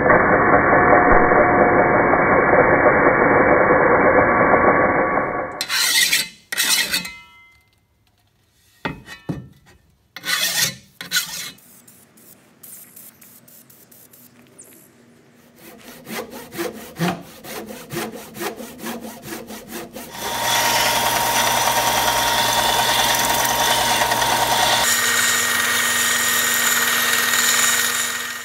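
An angle grinder cuts into a steel shovel head for about five seconds. Then come scattered knocks and quieter, broken sounds. About 20 seconds in, a benchtop belt sander starts running steadily with a low hum, sanding a wooden handle piece, until the end.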